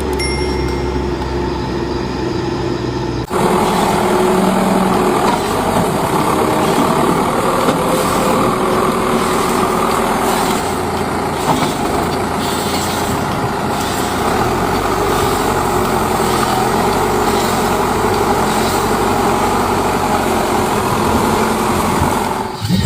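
Radio-controlled dump trucks driving: a steady motor-and-gear running sound with a truck-like drone. The sound changes abruptly about three seconds in and again just before the end.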